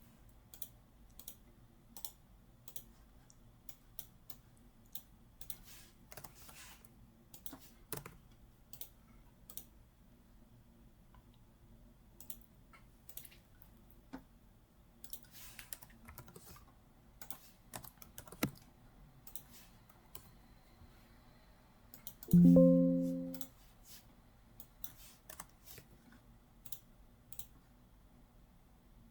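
Computer mouse and keyboard clicks, a few scattered clicks a second. About 22 seconds in, a single loud pitched note sounds suddenly and fades away within about a second.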